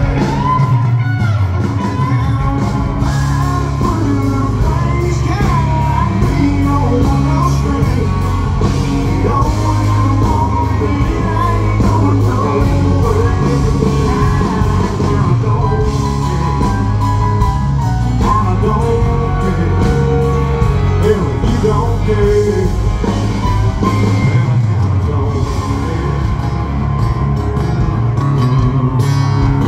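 Live country band music played loud through a concert PA, with a male lead vocal singing over bass, guitars and drums.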